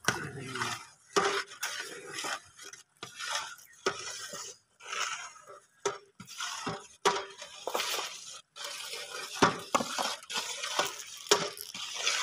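Long-handled metal spatula stirring and scraping in a large aluminium cooking pot of broth: a run of irregular scrapes and clinks.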